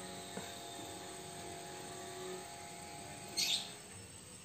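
A steady low motor hum in the background, with a brief, sharp, high-pitched squeak about three and a half seconds in.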